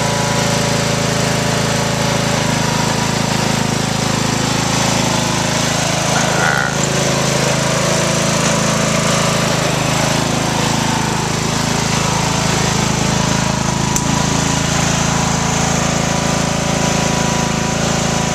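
Riding lawnmower's engine running steadily at a constant speed.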